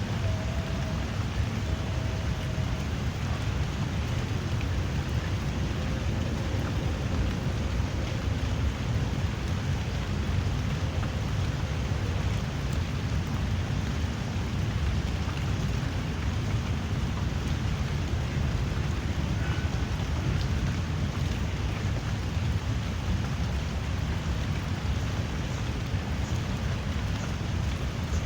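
Steady drizzling rain, an even unbroken hiss with a constant low rumble underneath.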